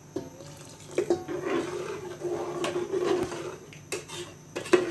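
Water poured from a metal vessel into a pot of curry gravy, followed by a ladle stirring and knocking against the metal pot a few times.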